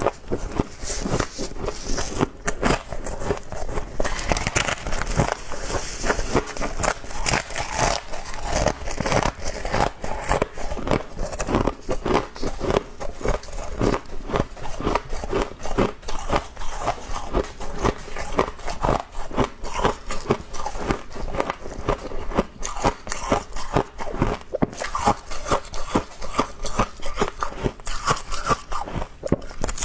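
Close-up crunching and chewing of humidifier frost, a fluffy, snow-like ice, in rapid, continuous bites.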